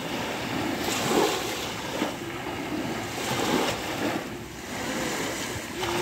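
Small waves of the Sea of Azov breaking and washing up over a sandy beach, the surf rising and falling every second or two.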